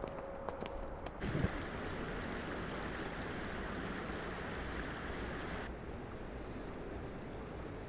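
A few footsteps on a paved path, then the steady rush of a shallow mountain river running over rocks, which turns duller near the end.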